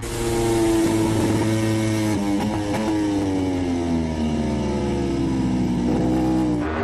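MotoGP racing motorcycle engines at high revs, the engine note falling slowly in pitch over several seconds, with an abrupt change in the sound near the end.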